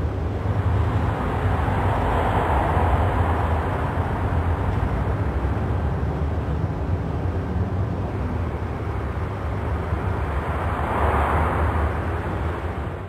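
Outdoor road traffic ambience: a steady low rumble, with vehicles passing and swelling up about two seconds in and again near the end.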